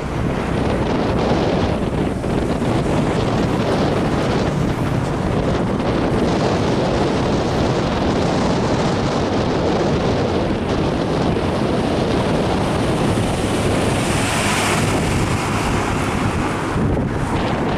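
Heavy diesel trucks, a Hino 500 trailer truck and a UD Nissan Diesel container tractor, passing close in traffic: a steady, dense rumble of engines and tyres with wind buffeting the microphone. A brighter hiss swells and fades about three-quarters of the way through as the trailer truck goes by.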